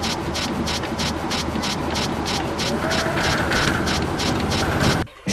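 Ride-on miniature steam locomotive puffing steadily at about four to five exhaust chuffs a second; the sound cuts off abruptly near the end.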